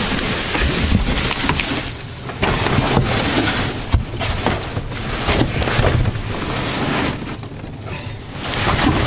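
Cardboard boxes and plastic bags in a dumpster being shifted and rummaged through: cardboard scraping and plastic crinkling, with sharp clicks and a low rumble on the microphone. The noise eases off briefly twice.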